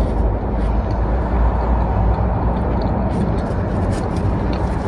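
Steady low rumble of background noise with a few faint clicks of chewing.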